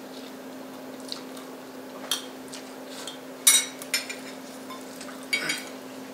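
People slurping noodles off forks, with cutlery against bowls and plates, in a few short bursts; the loudest comes about three and a half seconds in. A steady low hum runs underneath.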